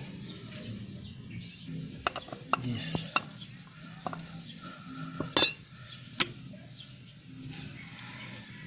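Metal clinks and knocks as a brake master cylinder and hand tools are handled and set down: a quick cluster of sharp clicks about two seconds in, then single clinks about a second apart.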